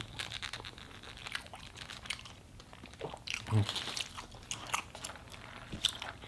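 Close-miked chewing and biting of food, many short crunchy mouth clicks one after another, with a brief low hum from the eater about three and a half seconds in.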